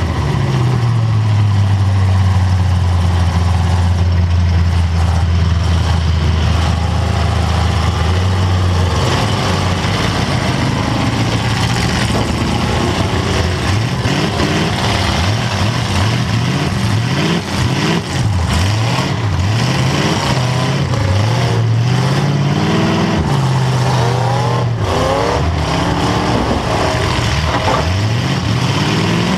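Demolition derby car's engine heard from inside the car, holding a steady low note for the first eight seconds or so, then revving up and down again and again.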